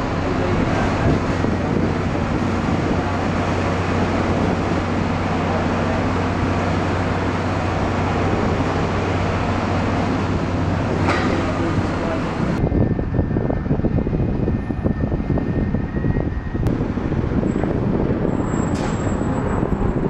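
Airport ground noise: a steady engine drone with a low hum, which changes abruptly about two thirds of the way through to a rougher, gustier rumble with a faint thin whistle.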